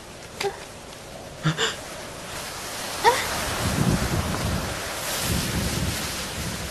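Wind blowing and gusting, growing louder about two seconds in with a low rumble underneath. A few brief high tones and a quick rising whistle come before the swell.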